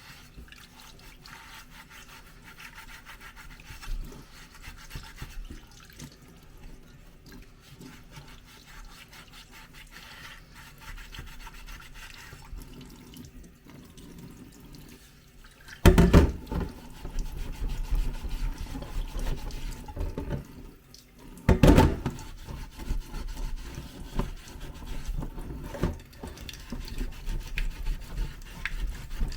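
Water running and splashing at a kitchen sink as a rusty steel car panel is rinsed off after a soak in rust remover, with handling and scrubbing noises. Two loud sudden bursts come about halfway through and again some six seconds later, and the rinsing is busier after them.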